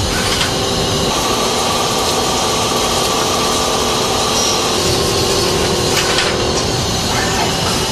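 Mazak Quick Turn Nexus 200-II MSY CNC turning centre machining a part: a steady spindle-and-cutting whine with a few held tones, and a brief sharp clatter about six seconds in.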